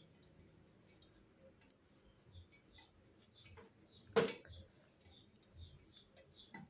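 Faint small ticks and high squeaks of a dried hibiscus face mask being picked and peeled off the skin with the fingertips, with one louder rub or knock about four seconds in.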